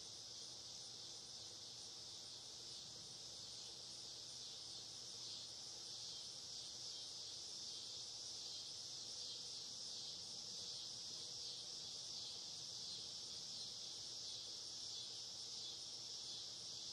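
Steady, high-pitched chorus of insects trilling continuously.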